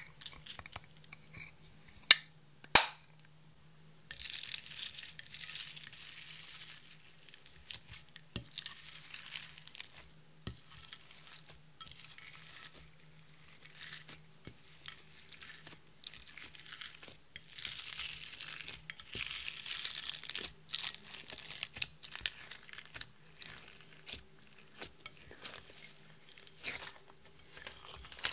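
Hands kneading and pressing clear slime mixed with crushed eyeshadow, glitter and pearl beads in a glass container: a long irregular run of wet crackles and squishes that comes and goes. Two sharp clicks sound about two and three seconds in.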